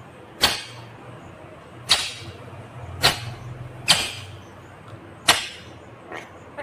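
Indian ringneck parakeet giving five short, shrill, sharp calls about a second apart, followed by fainter chirps near the end.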